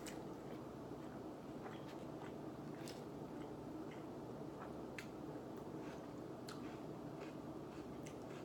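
Someone chewing pizza: faint, irregular clicks and smacks of the mouth every second or two, over a steady low hum.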